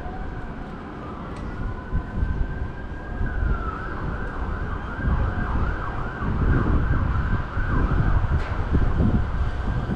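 Emergency vehicle siren sweeping up and down, a slow wail that changes to quicker yelps partway through, with wind buffeting the microphone.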